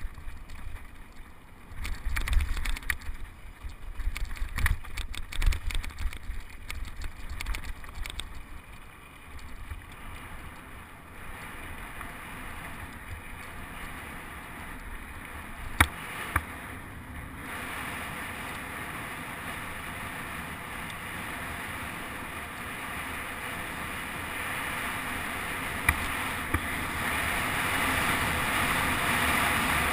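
Mountain bike rattling and knocking over rocky singletrack, heard from a helmet-mounted camera. After about ten seconds it gives way to a steady rush of tyres on smooth dirt and wind on the microphone, growing louder toward the end. There is a sharp click about 16 seconds in.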